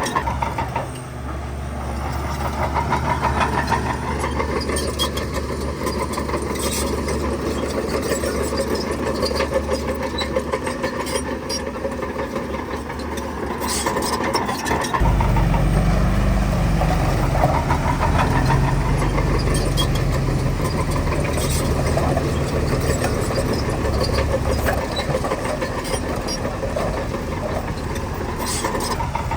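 Heavy diesel construction machinery running at a steady drone, growing deeper and louder about halfway through as an engine takes load. Short clanks are scattered through it.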